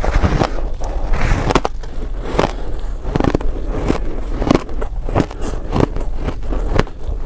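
Close-miked biting and chewing of buckwheat reshaped ice: crunchy, powdery crunches about once or twice a second as a crumbly frozen block is bitten and ground between the teeth.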